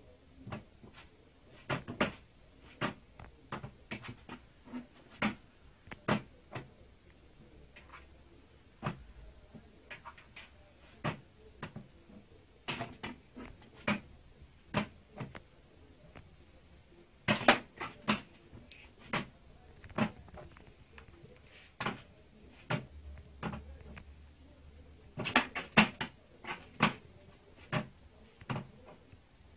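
Plastic swing-top lid of a small waste bin flapping on its pivot, giving irregular runs of sharp clicks and knocks, several in quick succession at times.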